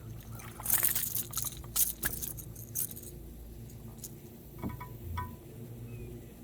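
Quick rattling and metallic clinking for about two seconds, then a few lighter clicks near the middle: a Rat-L-Trap lipless crankbait's rattles and treble hooks shaking as a just-caught bass is handled.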